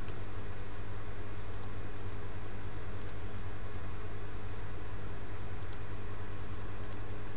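Four sharp clicks of a computer mouse, each a quick double tick of press and release, spaced a second or two apart, over a steady low electrical hum.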